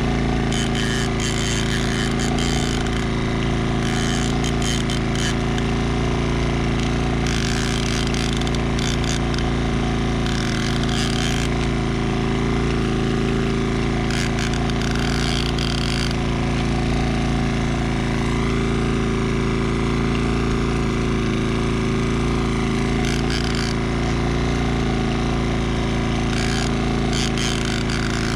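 Small outboard motor running steadily at low speed, a constant rattling hum, with scattered short clicks here and there.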